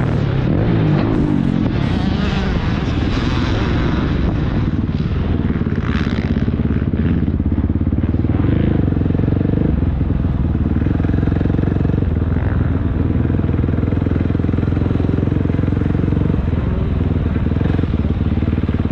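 Onboard sound of a 450 four-stroke motocross bike's engine, busier and noisier for the first few seconds, then running at low, steady revs as the bike rolls slowly along.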